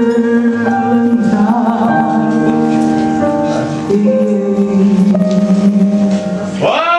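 Female voice singing long held notes with grand piano accompaniment in a jazz set. The held notes break off shortly before the end.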